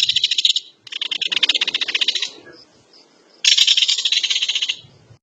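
Kingfisher giving its rapid, dry rattling call in three bursts. The first is already under way and ends within the first second, the second follows straight after, and the third comes about three and a half seconds in.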